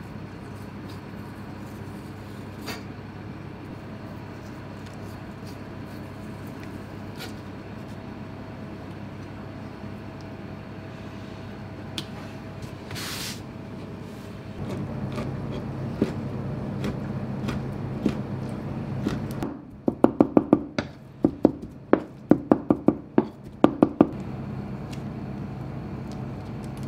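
Kitchen knife chopping raw Pacific saury fillets into mince on a plastic cutting board: a quick run of about a dozen sharp strikes, roughly three a second, over a steady background hum.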